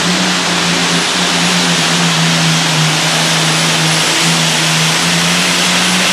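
Light Modified pulling tractor's engine running loud and flat out at a steady pitch, under full load as it drags a weight-transfer sled.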